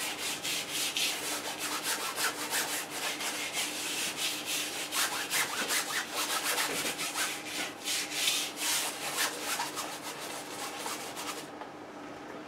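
Stiff flat paintbrush scrubbing paint onto a stretched canvas in rapid back-and-forth strokes, toning the sky; the scratchy strokes stop near the end.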